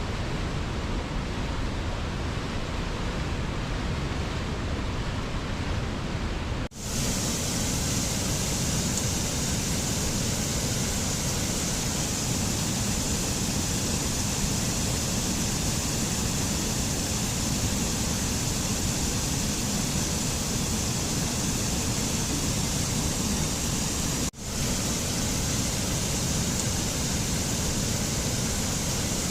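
Rushing river water, a steady even roar of flowing and falling water. It drops out for an instant about a quarter of the way in and again near the end. After the first dropout it comes back hissier and brighter.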